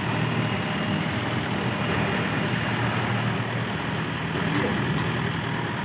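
A farm machine's heavy engine idling with a steady, low, even drone.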